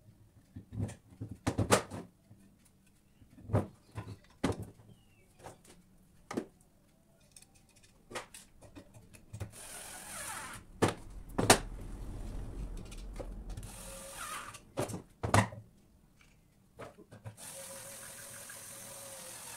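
Hardwood stool legs knocking and clacking against each other and the bench as they are handled and fitted together. After that, a Bosch cordless screwdriver runs three times, driving screws into the wood, the last run about two seconds long near the end.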